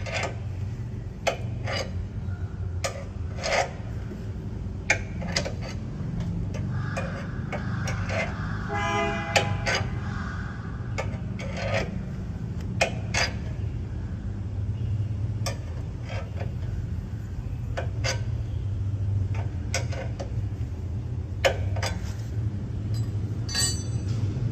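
Car jack being cranked to lift the car, its handle and screw giving repeated metal clicks and rubbing about one or two times a second over a steady low hum. A car horn honks briefly about nine seconds in.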